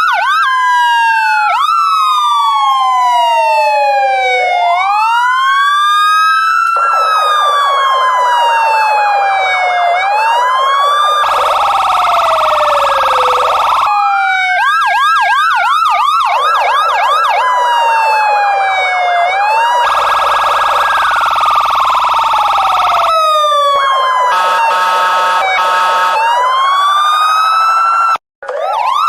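Electronic police car siren cycling through its patterns: a slow wail rising and falling, a fast yelp, and rapid warbling tones, broken up by a few harsher buzzing blasts. It cuts out briefly near the end and starts again.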